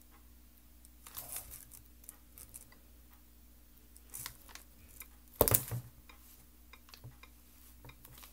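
Light handling noises: faint taps and rustles as fingers work the tablet, with one louder crinkling rustle about five and a half seconds in, over a faint steady hum.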